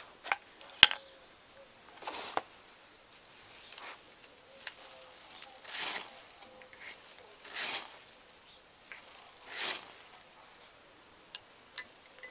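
About four short scraping rasps a couple of seconds apart, fire-lighting strikes at the start of lighting a wood fire. Two sharp clicks come near the start.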